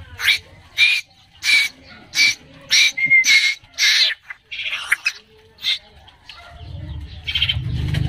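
Fledgling Asian koels giving short, sharp begging calls in a quick string, about one every two-thirds of a second, as they are fed by hand. The calls thin out near the end, where a low steady hum comes in.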